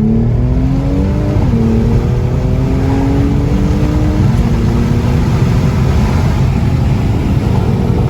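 Mercedes-AMG C43's twin-turbo V6 through an AWE Track Edition exhaust accelerating hard in Sport Plus. The engine note rises, drops at an upshift about a second and a half in, climbs again, then shifts once more about four seconds in and pulls on more steadily.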